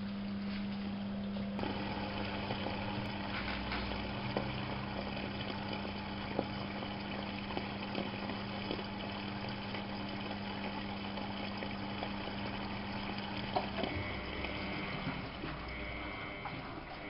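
Miele Novotronic W830 washing machine working water through its drum: water flowing over a steady low hum, the hum cutting out about fifteen seconds in.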